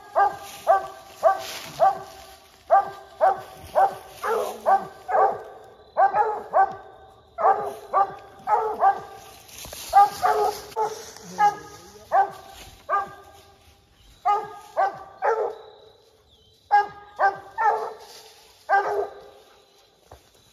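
Coon-hunting dog barking steadily at a raccoon treed above it: short, sharp barks in quick runs, most about half a second apart, with brief gaps. Dry leaves crunch underfoot at times.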